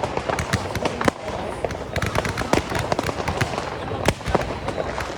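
Fireworks going off: a dense, irregular run of sharp bangs and cracks, many overlapping.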